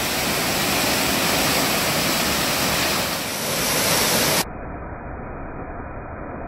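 Waterfall's falling water, a steady full rush. About four and a half seconds in it cuts abruptly to a quieter, duller rush.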